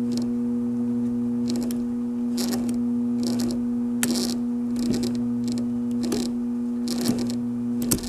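1920s Century Electric quarter-horsepower repulsion-start induction motor energised but stalled, giving a steady electrical hum, with scratchy clicks every second or so as the shaft is turned by hand. It hums without starting because the brushes are not making good contact, which the owner puts down to a non-conductive coating built up inside.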